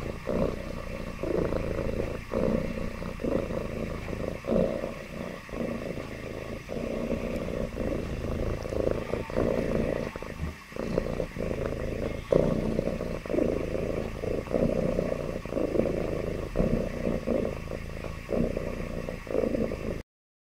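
Ginger tabby cat purring, a continuous low rumble that dips briefly about once a second with its breathing.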